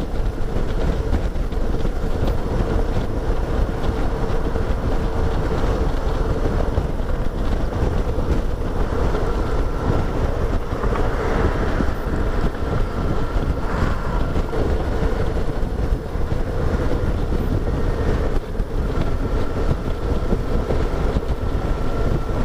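Motorcycle engine running steadily at cruising speed, with heavy wind rushing over the microphone in a strong crosswind.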